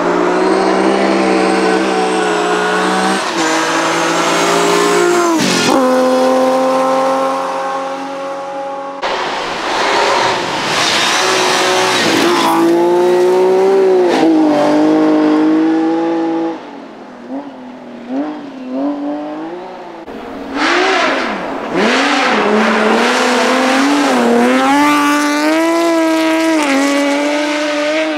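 BMW rally car engines revving hard at speed, the pitch climbing and dropping with gear changes. The audio cuts abruptly between cars several times. Past the middle comes a quieter, choppier stretch of throttle blips and low burbles.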